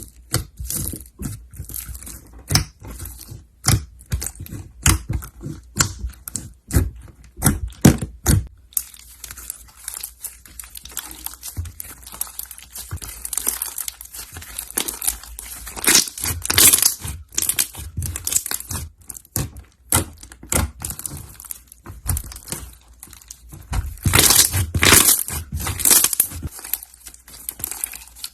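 Slime being handled by hand, making crackling, crinkling pops: sharp, irregular pops at first, then a denser crackle that grows louder twice, about halfway and near the end.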